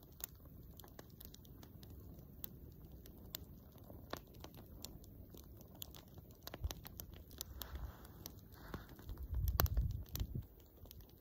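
Small crackles and ticks, scattered and irregular, from a SOL Fire Lite fuel cube burning under a canteen cup. A louder low rumble comes about nine seconds in.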